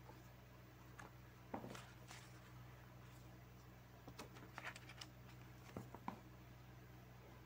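Faint rustles and light taps of hands handling a paperback book and its cover, a handful of short scattered sounds with the strongest about a second and a half in, over a low steady hum.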